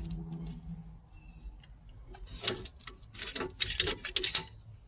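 Light metallic clicking and clinking as brake parts and hand tools are handled during a rear brake pad change, in several quick clusters in the second half.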